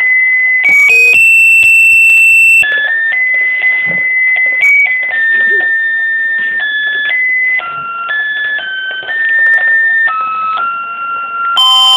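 Electronic musical toy playing a simple beeping tune, one note at a time, each held about half a second to a second before stepping to another pitch. About a second in, one louder, brighter note is held for over a second.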